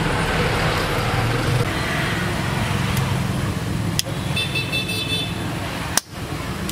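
A steady low engine-like rumble, with two sharp clicks about three and four seconds in as a lighter is struck to light a brazing torch. A brief high horn-like toot follows just after.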